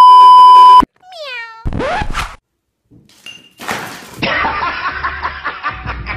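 A loud steady beep tone, the TV test-pattern tone, for about the first second, cut off suddenly. Then a cat: a meow falling in pitch, a short rising cry, and from about four seconds in a long harsh yowl.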